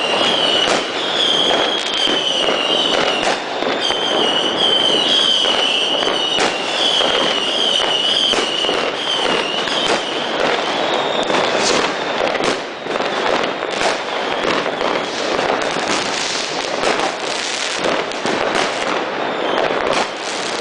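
Fireworks and firecrackers banging and crackling densely without a pause. A high warbling whistle wavers above the bangs for about the first half, then fades.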